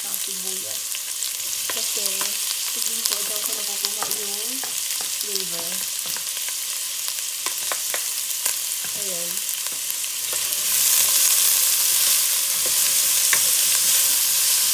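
Chopped onion and browned garlic sizzling in oil in a stainless steel pot, with scattered light clicks. The sizzle gets louder about ten seconds in, as a wooden spoon stirs them.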